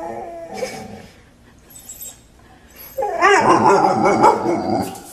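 A dog whining: a short whine right at the start, then a louder run of wavering whines from about three seconds in, lasting nearly two seconds.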